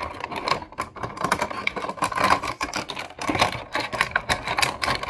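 Stiff clear plastic toy packaging crackling and snapping in quick, irregular clicks as it is handled and cut open with scissors.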